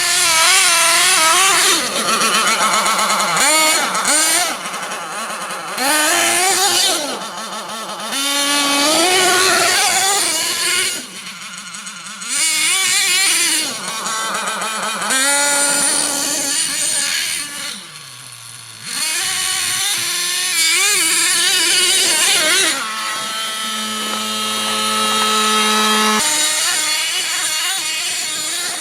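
Radio-controlled MTA4 Sledgehammer monster truck's motor and drivetrain whining, revving up and down in repeated bursts as it is driven around, with a held steady pitch near the end.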